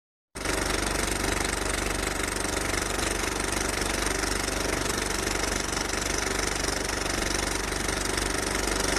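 An engine running steadily at idle, with a fast, even pulse underneath. It starts abruptly about a third of a second in.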